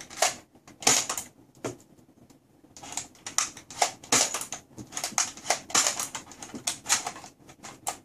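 Nerf N-Strike Elite Strongarm revolver blaster being worked by hand: its plastic priming slide pulled back and pushed forward and the trigger pulled, a run of sharp plastic clicks and clacks. A short cluster comes about a second in, then a dense string of clicks for several seconds.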